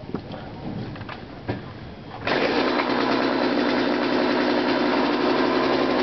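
McCulloch 3818 38cc two-stroke chainsaw engine starting up: after a couple of seconds of faint clicks it catches suddenly about two seconds in and then runs steadily.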